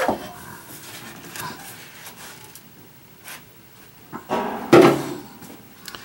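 Plastic dehumidifier water bucket being handled and set aside: a knock at the start, light clicks and scrapes, and a louder scraping clatter about three-quarters of the way through.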